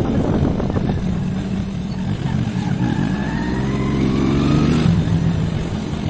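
Scooter engine running on the move; its pitch rises as it speeds up from about three seconds in, then drops back suddenly near the end.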